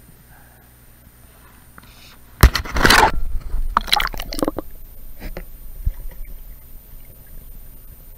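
A splash about two and a half seconds in as a camera is pushed under a stream's surface, then a second burst of sloshing and muffled underwater gurgling that slowly fades.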